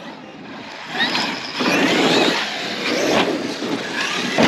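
Electric RC monster truck driving over dirt: the motor whine rises and falls with the throttle over the noise of tyres and gravel. It picks up about a second in and stays loud to the end.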